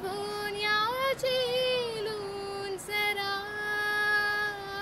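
A girl singing solo and unaccompanied, holding long notes with a slight waver. The melody rises about a second in, and she takes a short breath just before three seconds in.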